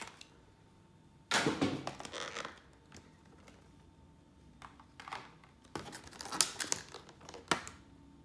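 Plastic card sleeves and packaging crinkling in a burst, followed by a string of short clicks, taps and rustles as cards are handled.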